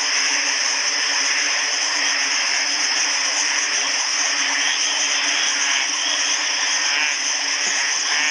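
Night chorus of tropical frogs and insects: a dense, steady wall of calls, mostly high-pitched, over a low steady hum.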